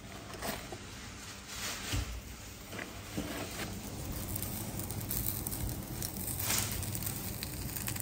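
Kitchen handling sounds: plastic packaging crinkling and scattered light clicks and knocks as leftovers are put into a frying pan to warm.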